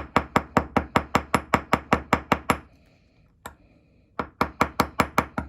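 Riveting hammer tapping rapidly and evenly on metal rivets, about five light strikes a second, peening the decorative rivet heads down to set them. About halfway through the tapping stops for a moment, with one lone tap, then picks up again at the same pace.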